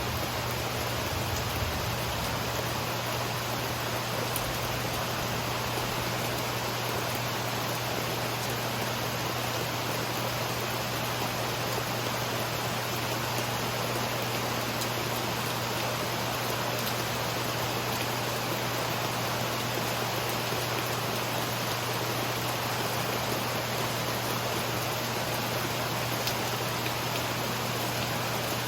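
Steady rain from a summer thunderstorm, an even hiss with no thunderclaps, over a steady low hum.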